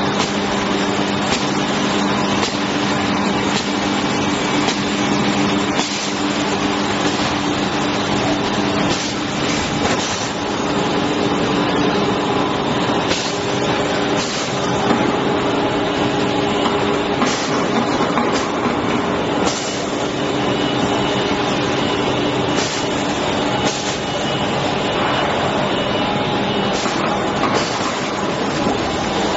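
Plastic sheet extrusion line running: a steady, loud mechanical noise with a low hum that drops away about a third of the way in and returns, and scattered short clicks.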